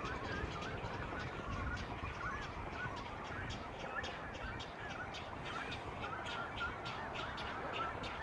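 Many birds calling at once in a nesting colony: a constant run of short wavering calls overlapped with sharp clicking notes, several each second.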